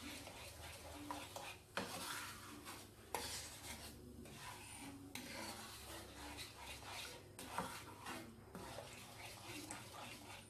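Wooden spoon stirring and scraping through sugar syrup in a non-stick frying pan as the syrup heats, with a few sharp knocks of the spoon against the pan.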